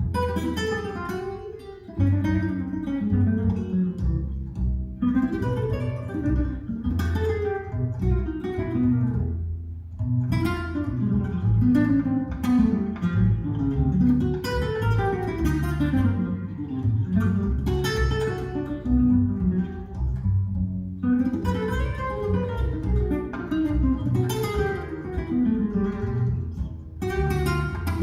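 Instrumental jazz for acoustic guitar and double bass: quick plucked guitar lines over a moving bass line, with brief drop-offs in level about 2 s in and again around 10 and 21 seconds.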